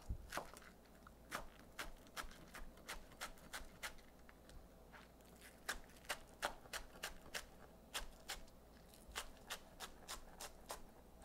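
Chef's knife slicing green onions on a cutting board: a string of quiet, uneven knife taps, about two or three a second, with a short pause about halfway through.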